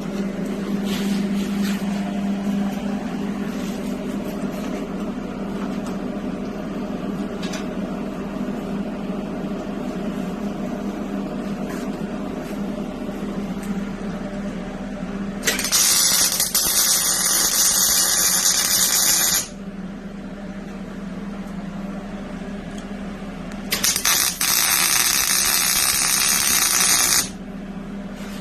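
Electric arc welding on lightweight steel tubing and sheet metal: two welds of about four seconds each, the arc crackling and hissing evenly, the second starting several seconds after the first stops. A steady fan hum runs underneath.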